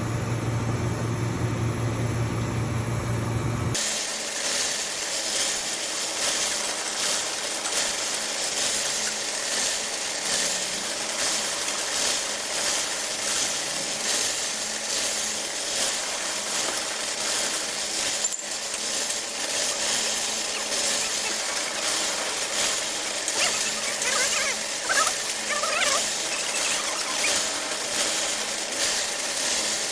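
Electric welding arc on aluminium crackling and sizzling steadily, starting about four seconds in after a low electrical hum cuts off.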